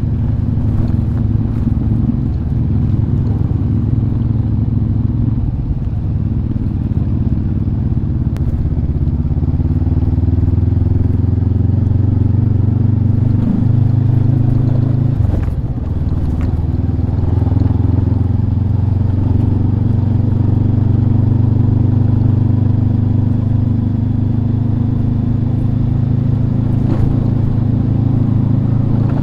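Motorcycle engine running steadily while under way, with a brief drop in engine speed about halfway through that then picks back up, as at a gear change or easing off the throttle.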